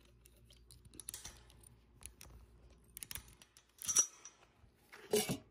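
A rusty gate chain rattling and clinking against a metal post as a brass snap hook is fastened, with scattered small clicks. The sharpest clink comes about four seconds in, and a brief pitched creak comes near the end.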